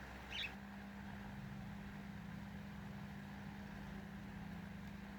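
Faint steady low hum with no speech, and a brief faint tick or breath-like sound about half a second in.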